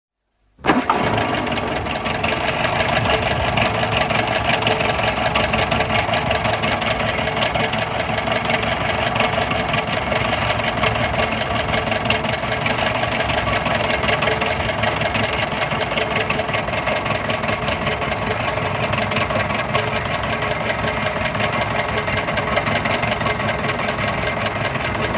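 A 1940s car engine starting up about half a second in and then idling steadily, with a fast, even firing beat.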